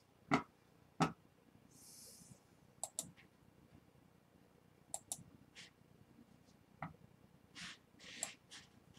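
Scattered clicks of a computer mouse and keyboard: two sharp clicks in the first second, then fainter clicks, often in quick pairs, with a few short soft hisses between them.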